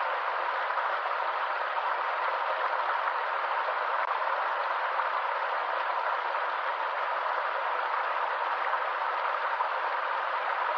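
Stream water flowing: a steady, even rush with no change in level.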